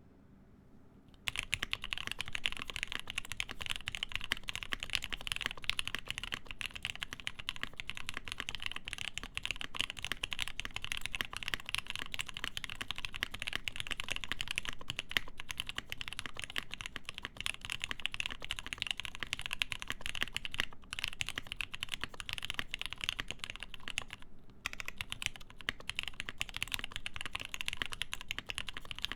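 Fast, continuous typing on a mechanical keyboard with lubed Gateron Ink linear switches, a full POM plate and GMK doubleshot ABS keycaps, starting about a second in. There are short pauses twice near the end.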